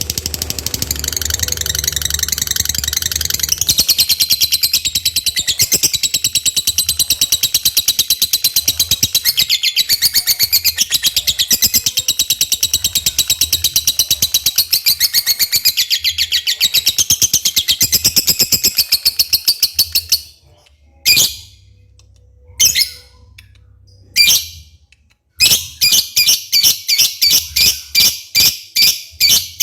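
Lovebird singing a long, fast, unbroken high-pitched chattering trill for about twenty seconds. It breaks off into a few separate short bursts, then picks up again near the end as a string of evenly spaced chirps, about four a second.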